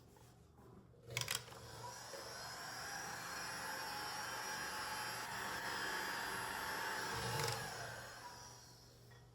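Electric heat gun switched on with a click about a second in, its fan running with a steady whir, then switched off near the end. It is blowing hot air to soften the part so it can be worked into place.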